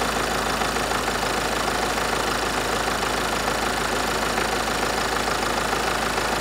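Ford Mondeo Mk5 2.0-litre diesel engine idling steadily, running for an injector leak-off test in which injectors one and two are returning far too much fuel to their bottles.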